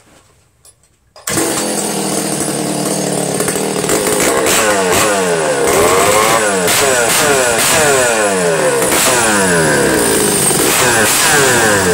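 A Stihl two-stroke chainsaw fitted with a homemade exhaust pipe catches suddenly about a second in and runs loud. From about four seconds in it is revved up and down over and over, the pitch rising and falling with each blip of the throttle.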